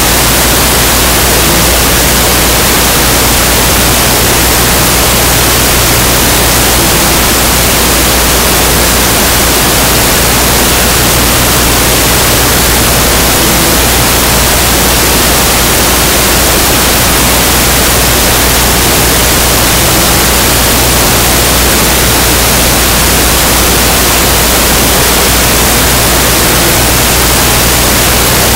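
Loud, steady static hiss with a low hum beneath it, unchanging throughout, covering any sound from the game.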